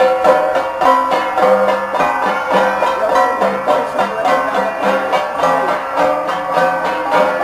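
Gangsa ensemble, a set of flat bronze gongs struck in a quick, steady interlocking rhythm, each stroke ringing a clear metallic pitch.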